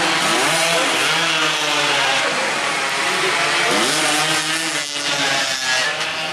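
Several two-stroke 116–125cc underbone racing motorcycles at high revs, their buzzing engine notes overlapping and rising and falling in pitch, with a brief dip about five seconds in.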